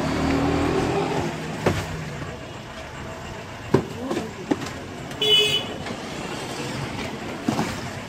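Street traffic noise with a short vehicle horn toot about five seconds in, and several sharp knocks as cardboard cartons are handled at a goods truck.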